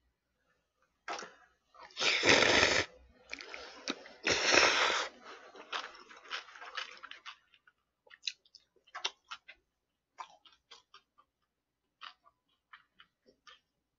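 Bibim naengmyeon noodles slurped loudly twice, each slurp under a second, followed by close-miked chewing with many short wet mouth clicks.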